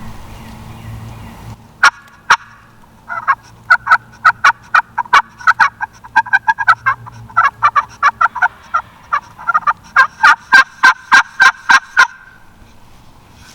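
Hand-worked turkey call sounding a long, fast run of sharp hen yelps and cutts: two single notes, then dozens of quick notes over about nine seconds that stop abruptly. It is a hunter calling aggressively to pull a gobbling tom out of his cover.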